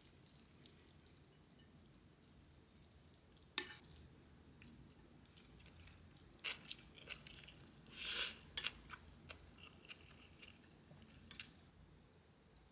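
Quiet eating and tableware sounds: a sharp clink about three and a half seconds in, then scattered small clicks and a short crunch around eight seconds in.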